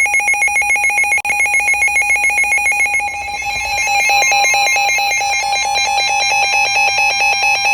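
Electronic emergency alert tone between two severe weather alert messages: a loud, buzzy signal that trills rapidly between pitches, about ten times a second, much like a telephone ringing. About three seconds in its pattern changes to a different warble.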